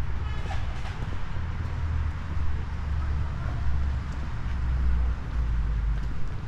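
City street traffic: a steady low rumble of passing vehicles, with a brief high-pitched sound about half a second in.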